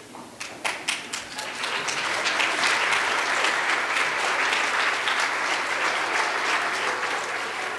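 Audience applauding: a few scattered claps that swell within a couple of seconds into full applause from many hands, then begin to die away near the end.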